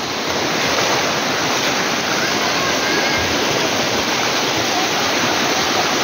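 Small waterfall: shallow water rushing steadily down sloping rock slabs in white cascades.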